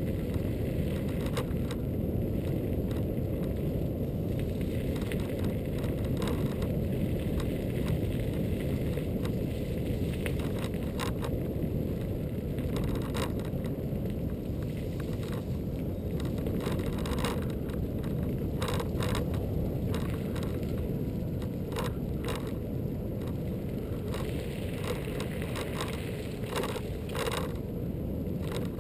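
Steady low rumble of wind and tyre noise while riding a Xiaomi M365 electric scooter, with frequent brief clicks and rattles from bumps in the path, more of them in the second half.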